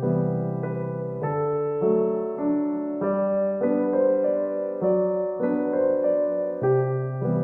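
Background piano music: a gentle, slow piano piece, notes and chords changing about once or twice a second.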